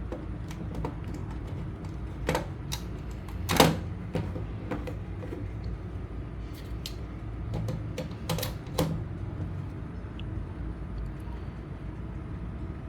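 Scattered clicks and knocks of a laptop charging adapter and its cable being handled and plugged in, over a steady low hum. The loudest knock comes a few seconds in, and a pair of clicks follows past the middle.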